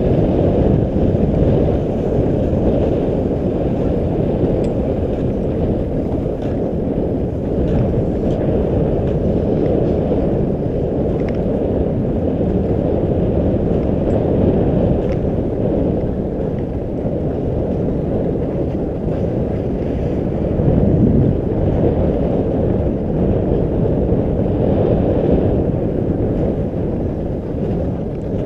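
Steady low wind noise buffeting a GoPro camera's microphone as it moves downhill at skiing speed.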